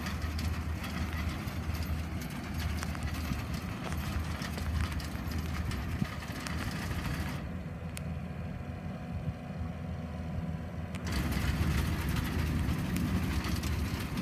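Compact tractor's engine running steadily as it pulls a turf slicer through the sod of a football field, the blades cutting into the hard ground; it gets louder near the end as the machine comes closer.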